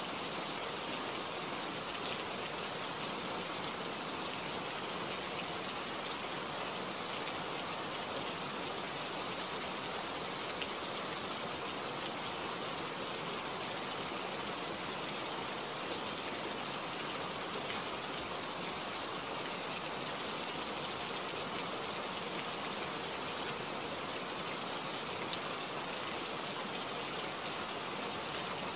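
Steady rain: an even hiss with scattered faint drop ticks, unchanging throughout.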